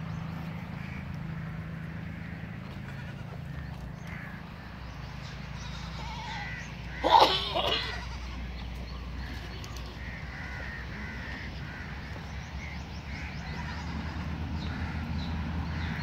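A goat bleats loudly once about seven seconds in, a short wavering call, with fainter bleats from the herd now and then over a low steady rumble.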